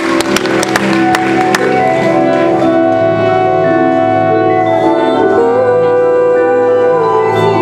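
High school marching band playing. Sharp percussion strokes sound over the first second and a half, then the winds hold sustained chords while a melody line climbs about five seconds in.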